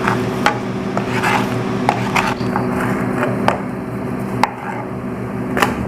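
Kitchen knife slicing through a raw chicken breast on a cutting board, the blade knocking on the board at irregular intervals, about seven times.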